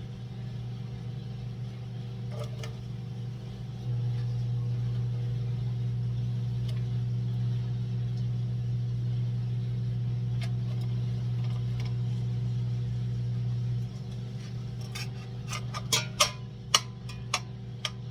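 Steady low hum of a kitchen appliance, which steps louder about four seconds in and drops back about ten seconds later. Near the end comes a run of sharp clicks and knocks, like utensils and cookware being handled.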